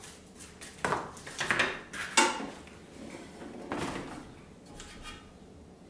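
Knocks and clatter of a metal tabletop propane griddle and its gas hose fitting being handled and shifted on a cardboard-covered table, a few separate hits with the sharpest about two seconds in.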